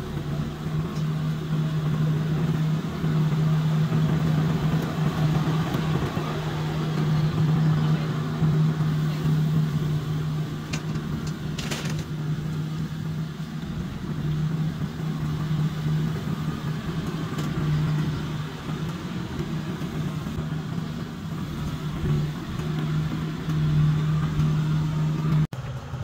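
An engine running at a steady speed, a constant low drone with noise over it, without speeding up or slowing down.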